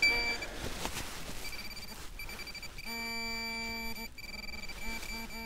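A handheld metal-detecting pinpointer beeps while it is worked around a target in mud. A high steady tone sounds in short runs and longer stretches, and a lower buzzing tone cuts in and out from about three seconds in.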